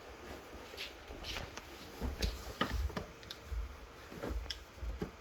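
Cardboard box and packaging being handled and opened: scattered clicks, taps and light rustles with a few soft thumps.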